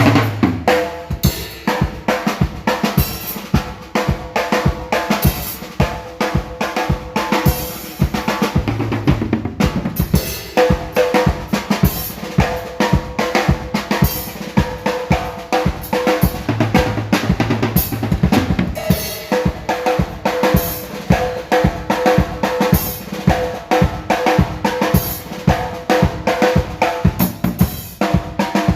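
Acoustic drum kit played continuously in a busy, steady beat, with bass drum, snare and cymbals.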